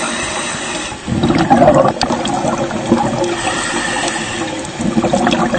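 Rushing, bubbling water noise, uneven in strength, with a surge about a second in.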